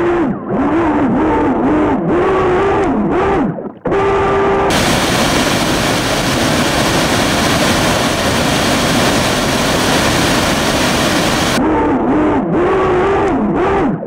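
Streamline RC Thrasher jet boat's electric motor whining as it runs through the water, its pitch rising and falling with the throttle. From about five to twelve seconds in, the steady rush of the waterfall takes over, and then the motor whine returns.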